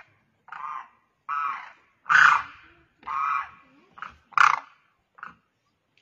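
Demoiselle crane calling: a series of about seven short calls, with the loudest just after two seconds in and again about four and a half seconds in.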